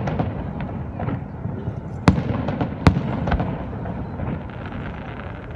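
Fireworks bursting overhead: two sharp loud bangs about two and three seconds in, with several smaller pops and a continuous low rumble between them.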